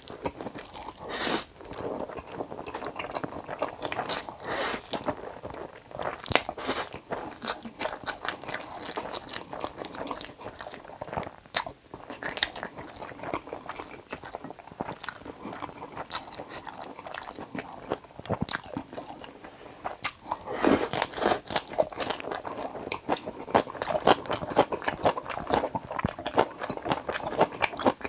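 Close-miked eating sounds of a person eating Jjapaghetti with fried eggs: continual wet chewing, biting and crunching, with several louder moments about a second in, around four to seven seconds in, and around twenty-one seconds in.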